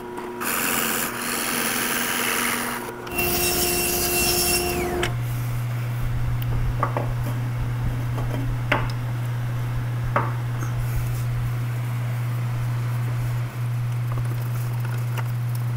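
Drill press running and boring into a wooden block with a Forstner bit, in two passes with a short break between them. Then a steady low hum with a few light clicks and knocks while the wooden handle of a leg vise screw is turned.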